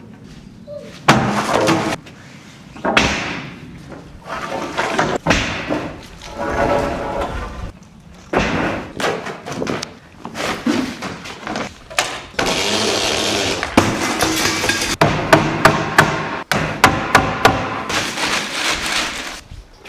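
Wooden planks knocking and clattering as they are handled, with stretches of large plastic sheeting rustling and a quick run of sharp knocks in the last few seconds.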